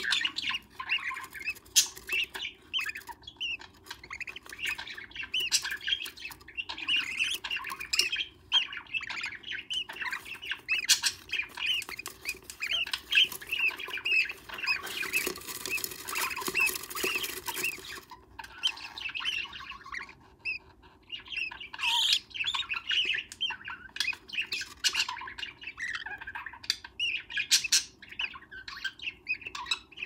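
Lovebird chicks in a wooden nest box squawking in rapid, near-continuous chatter of short calls. About halfway through, a few seconds of rustling and scuffling mix in as the chicks scramble under the parent.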